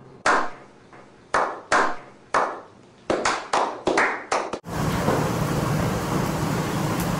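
A small group clapping slowly: single claps about a second apart that quicken to several a second, then cut off abruptly about four and a half seconds in. A steady restaurant background din follows.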